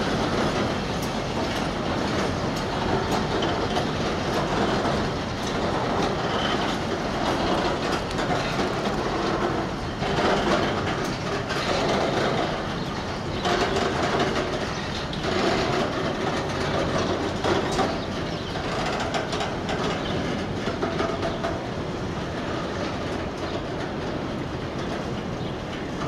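Container freight wagons rolling past: a steady rumble of steel wheels on rail with frequent clicks, swelling a little in the middle.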